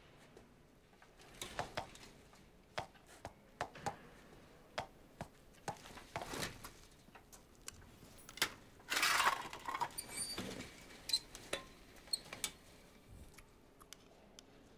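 Quiet scattered clicks and knocks, then about nine seconds in a short scrape and a few light metallic clinks as a bowl of food is pushed in through the cell bars.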